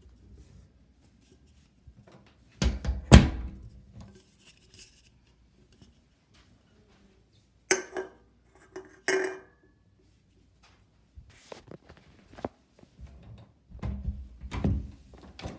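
Handling noises in a quiet room: a loud knock about three seconds in, then two clinks of a glass bottle being picked up and set down around eight and nine seconds, and footsteps on a tiled floor near the end.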